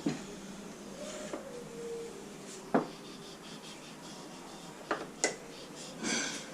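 Hand wrench working on the bolts of a Honda 150 motorcycle engine's cylinder head and cam chain tensioner: light rubbing and scraping, with a few sharp metal clicks and knocks of the tool against the bolts.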